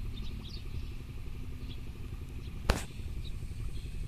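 Wind rumbling unevenly on the microphone, with a few faint high chirps and one sharp click about two and a half seconds in.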